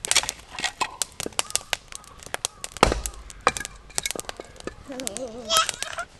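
Wood campfire in a fire stand crackling with frequent sharp clicks, and a knock of split wood being laid on it about three seconds in. A small child's voice sounds briefly about five seconds in.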